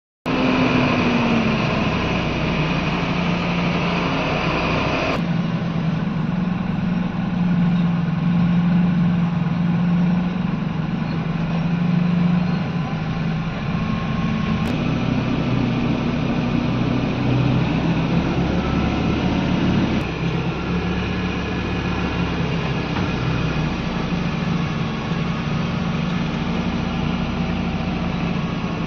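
Heavy diesel dump truck engine running steadily, a low hum under a rumbling, dusty road noise. The sound changes abruptly at a few points.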